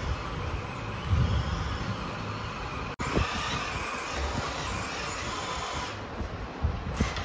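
Scale RC crawler's small electric motor and gearbox whirring under load while climbing, with a few bumps and knocks. The sound breaks off and resumes abruptly about three seconds in.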